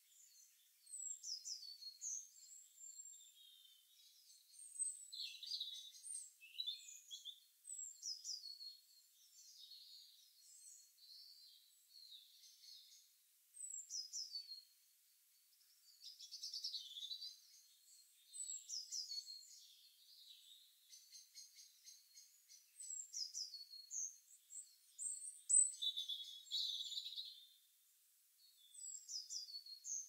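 Songbirds singing: short, high phrases, many of them sliding downward, repeating every couple of seconds and now and then overlapping.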